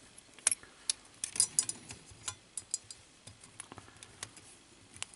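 Small jeweler's screwdriver clicking against a tiny Phillips screw and the metal plate of a cassette deck's transport mechanism as the screw is worked loose: a string of light, irregular ticks, more frequent in the first half.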